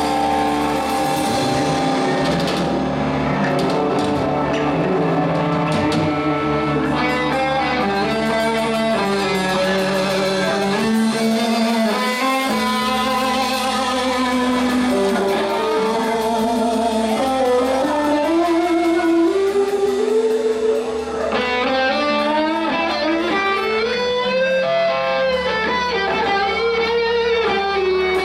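Live rock band playing an instrumental passage: an electric guitar lead of long notes that bend and glide in pitch, over bass, drums and rhythm guitar.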